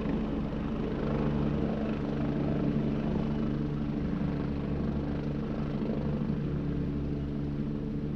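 Multirotor drone's propellers and motors humming steadily in flight, with a slight rise in pitch about a second in.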